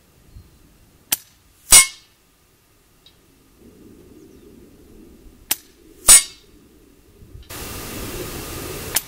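Two air-rifle shots about four and a half seconds apart, each a sharp click followed about half a second later by a louder, slightly ringing crack. Near the end a steady hiss comes in, with one more click.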